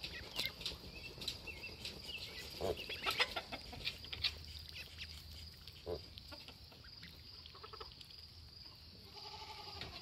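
Call ducks and ducklings calling: scattered short quacks and peeps, with one longer, evenly pitched call near the end.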